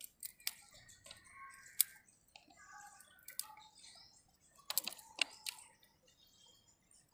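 Small serrated knife cutting peeled raw jackfruit into small pieces: scattered sharp clicks and crunches as the blade goes through the fruit and the pieces drop into a plastic basket, with a quick run of them about five seconds in.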